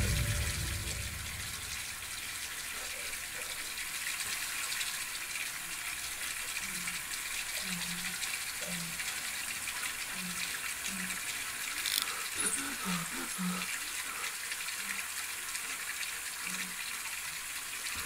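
A steady rushing hiss, like water running from a tap, with faint short low hums now and then and a single sharp click about twelve seconds in.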